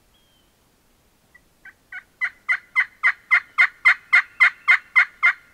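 A long series of turkey yelps, about fourteen evenly spaced two-toned notes at roughly four a second, getting louder as it goes and then stopping.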